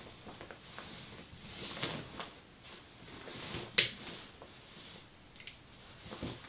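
Soft rustling of bedding as a person shifts in bed, then a single sharp click about two-thirds of the way in, a lighter being struck at a cigarette, with a second click right at the end.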